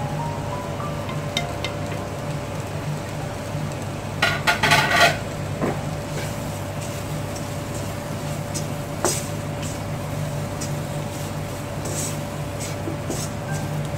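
Wooden spatula stirring and knocking in a wok of frying mushrooms, with a burst of clattering about four seconds in and a few single knocks later, over a steady low hum.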